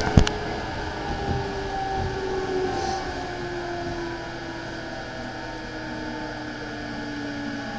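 E217-series electric train's traction motor whine, heard from inside the motor car, falling steadily in pitch as the train slows, over the running rumble of wheels on rail. Two sharp clatters right at the start come as the end of a passing train goes by.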